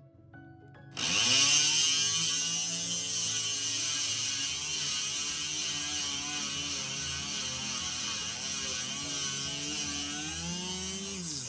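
Dremel rotary tool starting up about a second in and grinding a hole in glass with a diamond tube drill bit: a steady high motor whine over a gritty hiss, its pitch wavering as the bit bites. Near the end the pitch drops as the motor is switched off and winds down.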